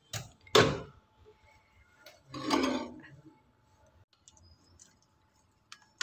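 Microwave oven door unlatched and swung open, with a small click and then a loud sharp clack about half a second in. A second, longer clatter comes about two and a half seconds in, and a few light clinks near the end.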